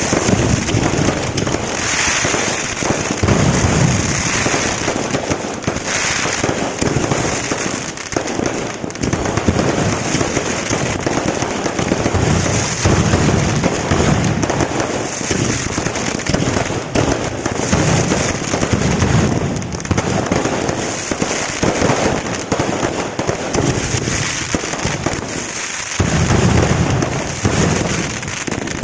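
Fireworks display: a continuous barrage of aerial shell bursts, bangs and crackling stars, with hardly a pause.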